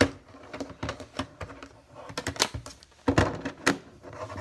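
Hard plastic PSA graded-card slabs clicking and clacking against one another and the table as they are handled, an irregular run of knocks.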